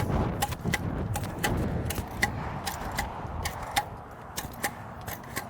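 Rapid, irregular sharp metallic clicks and clacks, a few a second, of landscape staples being driven with a Rifle M50 staple gun. The clicks are a little quieter in the later part.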